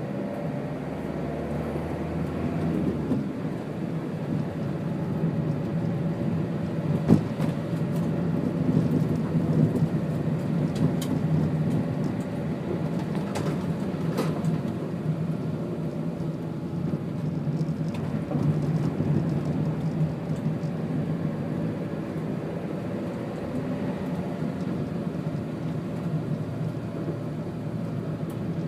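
Vehicle engine and tyres running on a wet tarmac lane: a steady low drone with the hiss of tyres on water, broken by a few sharp clicks.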